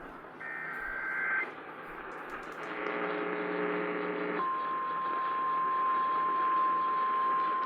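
Emergency Alert System tones over AM radio. First comes the last SAME header data burst, about a second of warbling digital screech encoding a tornado warning. A brief buzzy tone follows, and from about four and a half seconds in the steady single-pitch 1050 Hz weather-alert tone sounds.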